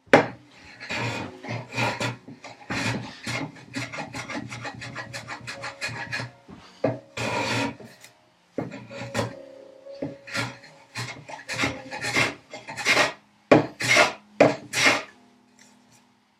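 Hand plane taking repeated strokes across the dovetailed corners of a wooden box, the blade scraping off shavings. The strokes come quickly at first, then slow to a few separate strokes near the end.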